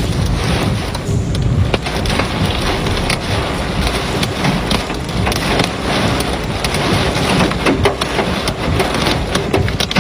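Hailstorm with heavy rain: a dense, steady hiss of falling water peppered with many sharp ticks of hailstones striking hard surfaces.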